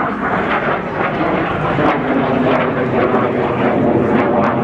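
Hawker Hunter jet flying overhead: a loud, steady rush of jet engine noise.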